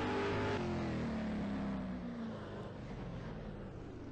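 Intro sound effect: an engine-like tone that falls in pitch and gradually fades away.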